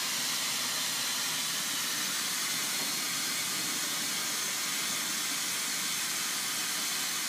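Glassworking bench torch flame hissing steadily.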